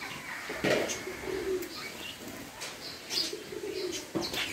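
Pet rose-ringed parakeets at their bath: short high chirps over a low, wavering cooing, with two brief sharp noises, one under a second in and one near the end.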